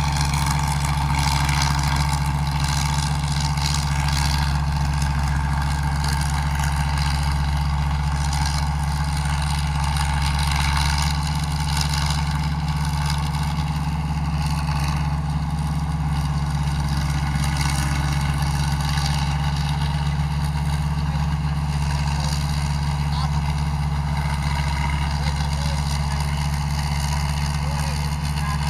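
Combine harvester's diesel engine running steadily with a constant low drone, no change in speed.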